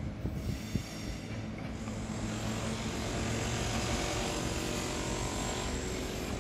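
Vintage Red Rattler electric train running away along the track: a steady rumble with a faint thin whine over it.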